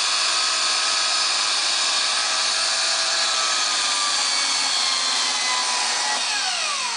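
Walita Jubileu electric stand mixer running, its motor and beaters giving a steady whine over an empty glass bowl. Near the end the pitch slides down as the motor spins down.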